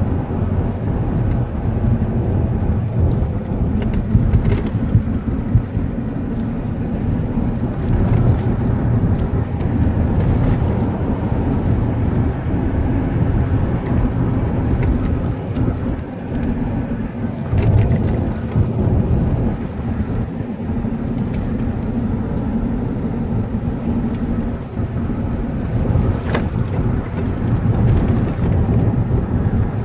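Car driving, heard from inside the cabin: a steady low rumble of tyres on asphalt and engine, with a few faint clicks.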